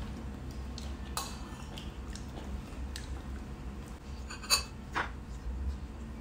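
Chopsticks and spoons clicking and clinking against ceramic bowls and plates while people eat, in scattered light taps. The loudest is a sharp, ringing clink about four and a half seconds in, followed by another half a second later.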